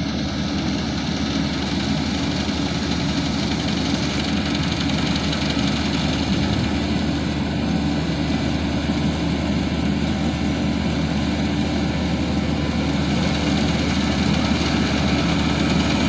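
Combine harvester's engine running steadily under load as it cuts and threshes ripe rice, growing gradually louder as it comes closer.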